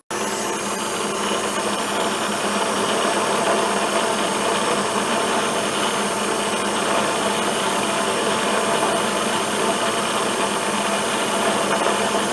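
Vertical milling machine taking a cut with a 4-flute high-speed steel end mill in mild steel. The motor, spindle and cutter make a steady, even machining noise with several constant tones throughout.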